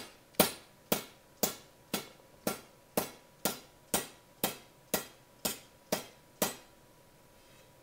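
Hammer blows on the end of a length of EMT conduit held in a bench vise, flattening it: about a dozen even strikes, roughly two a second, stopping about six and a half seconds in.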